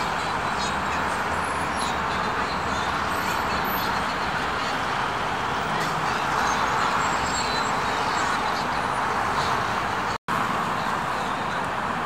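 Steady road-traffic noise from cars and buses on a busy city square: an even hiss and rumble with no distinct events, cutting out for an instant about ten seconds in.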